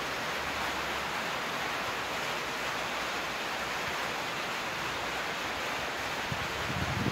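Steady hiss of rain falling, with a few low gusts of wind buffeting the microphone near the end.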